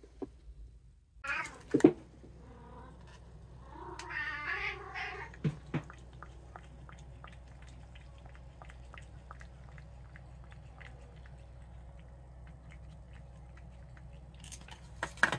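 Abyssinian cat meowing, a short call about a second and a half in and a longer one about four seconds in, then lapping and licking from a plastic cup in a steady run of small wet clicks, about two to three a second. A couple of sharp clatters come near the end.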